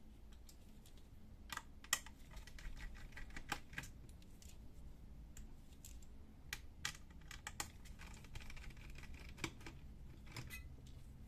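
Small screwdriver backing out the hard-drive screws of a laptop's underside: irregular light clicks and ticks with faint scraping as the screws turn.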